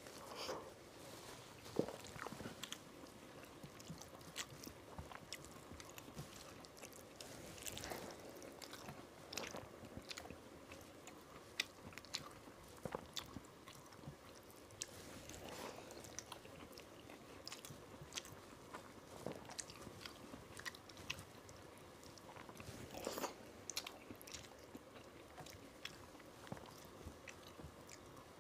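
Close-miked mouth sounds of a man eating rice mixed with fried vegetables by hand: chewing, wet smacks and occasional crunches, with fingers working the rice on the plate. The smacks and clicks come irregularly, a few every second.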